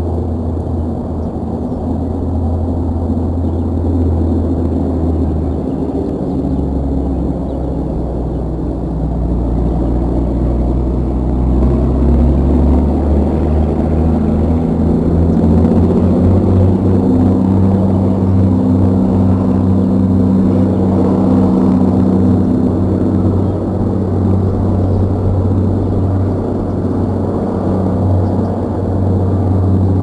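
Low, steady engine drone that gets louder and a little higher in pitch partway through.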